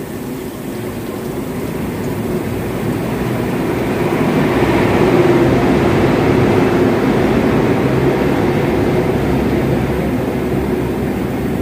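A loud, dense rumbling noise that builds over several seconds, peaks about halfway through, then slowly fades, in the way a passing vehicle or aircraft sounds.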